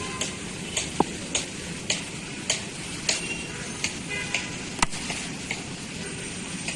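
A steady light ticking beat, a little under two ticks a second, over outdoor background noise. About five seconds in comes one sharp crack of a cricket bat striking the ball.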